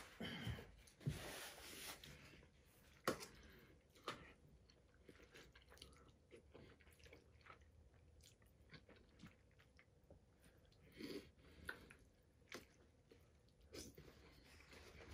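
Faint chewing of mouthfuls of soft pasta, with a few sharp clicks of a fork against a metal bowl, the loudest about three seconds in.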